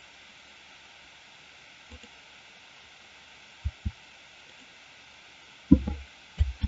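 Faint steady microphone hiss broken by soft low thumps of keys and a mouse being pressed at the desk: two close together about four seconds in, then a louder thump with a brief rustle around six seconds, and a couple more near the end.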